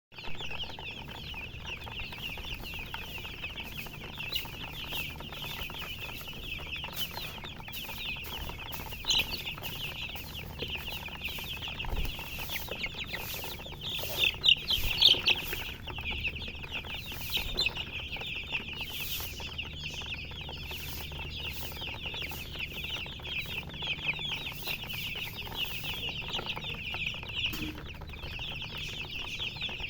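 Many chicks peeping in a dense, unbroken chorus of short high chirps, with a few louder peeps about a third of the way in and again around the middle.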